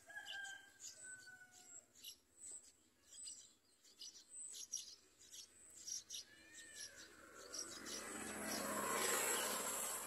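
Yellow-vented bulbul nestlings begging for food with rapid, high-pitched chirps. A few lower whistled notes come near the start, and a rush of noise swells up and fades near the end.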